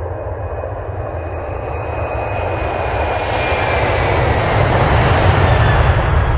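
Fly-by sound effect of a jet airliner: engine rumble and rushing noise swelling steadily louder, with a faint high whine slowly falling in pitch as it passes.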